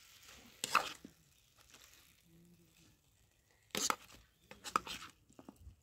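Metal spoon stirring chopped tomatoes and onions in an aluminium pot, with scattered scrapes and clinks against the pot: one about a second in and a quick cluster near the end.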